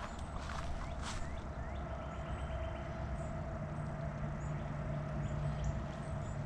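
A steady low engine hum, like a distant vehicle, sets in about two seconds in. Light rustling comes at the start, and a few faint high chirps come through.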